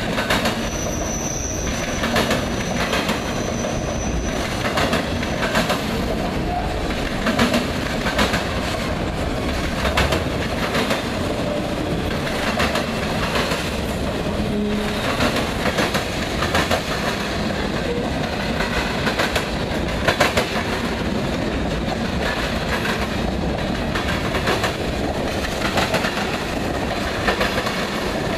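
Freight cars rolling past close by, their steel wheels clattering over the diamond crossing and rail joints in repeated clusters of heavy knocks over a steady rumble. About a second in, a thin high wheel squeal lasts for a few seconds.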